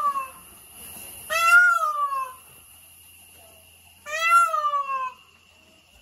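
Indian peafowl calling: the tail of one call right at the start, then two loud calls about three seconds apart, each about a second long, rising briefly and then sliding down in pitch.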